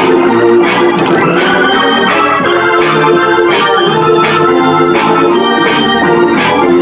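Organ music: sustained chords changing every second or so, over a steady beat.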